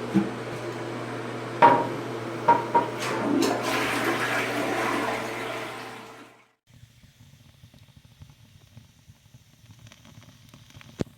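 Rushing water over a steady low hum, with a few sharp knocks, swelling about three seconds in and then cutting off abruptly partway through.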